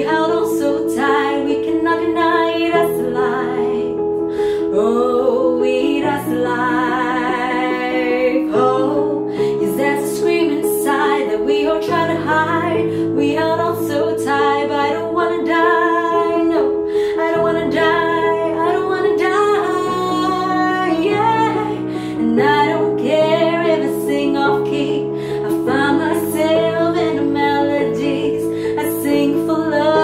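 A woman singing a pop ballad with digital piano accompaniment: long sung notes with vibrato over held piano chords.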